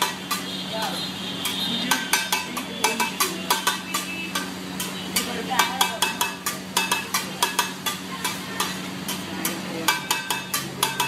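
Flat metal spatula blades beating on an iron griddle as food is chopped on it: a fast, irregular clatter of ringing metallic clanks, several a second, thinning for a moment midway.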